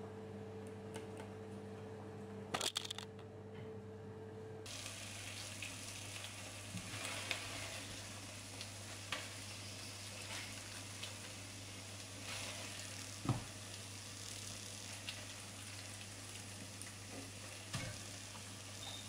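A faint steady hum with a brief cluster of clicks as oven control buttons are pressed. After a cut, a steady hiss with light scrapes and knocks as a wooden spoon serves food from a pot onto a ceramic plate.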